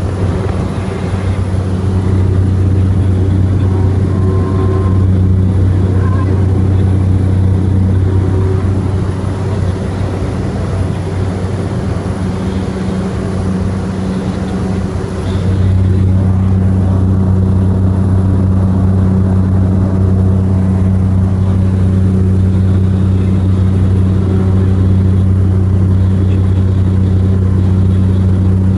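Cessna Grand Caravan EX's single turboprop engine and propeller running at high power with a steady deep drone; about halfway through the sound steps up louder and holds there.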